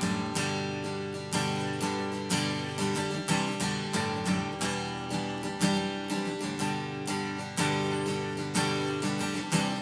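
Chinese-made replica of a Gibson J-200 jumbo acoustic guitar, strummed chords in a steady rhythm of strokes that ring on between them.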